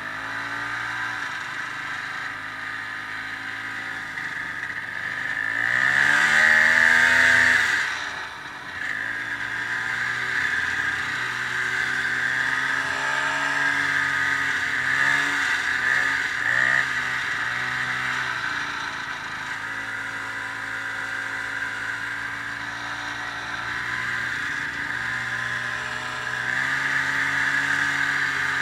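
Ski-Doo snowmobile engine running under way, revving up about six seconds in and dropping off sharply near eight seconds, then running steadily with small rises and falls of throttle.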